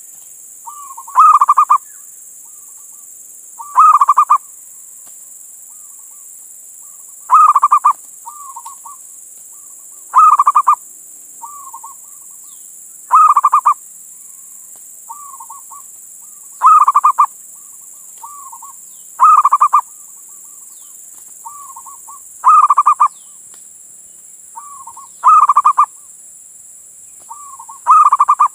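Male zebra dove (perkutut) singing its cooing song: a loud burst of rapid coos about every three seconds, each followed by a softer trailing note, repeated about ten times. A steady high hiss runs underneath.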